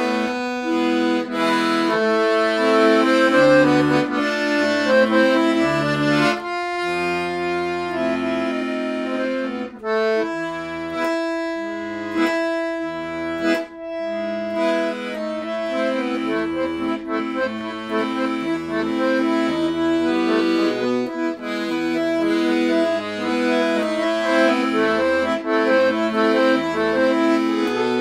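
Piano accordion played solo: sustained melody notes on the right-hand keyboard over a regular pattern of short bass notes and chords from the left-hand buttons, with brief breaks between phrases.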